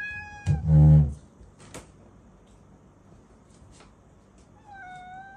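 Domestic black-and-white cat meowing for something: a short high meow at the start, a brief loud low sound right after it, and a second meow near the end that falls in pitch and then levels off.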